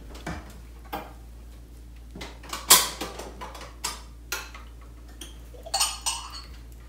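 Small bowls and dishes clinking and being set down on a kitchen counter: scattered separate knocks and clinks, the loudest about three seconds in and a short cluster near the end.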